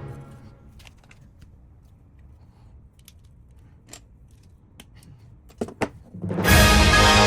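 Background music fades out, leaving a quiet stretch of faint, scattered small clicks and taps, with two sharper clicks close together about five and a half seconds in. Music comes back in loudly near the end.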